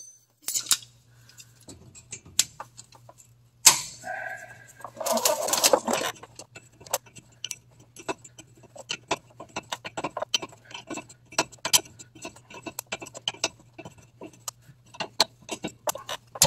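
Small metallic clicks and taps of a wrench working the adjusting nut on a parking brake cable rod, with locking pliers clamped on the rod. The clicks come in quick irregular runs, thickest in the second half.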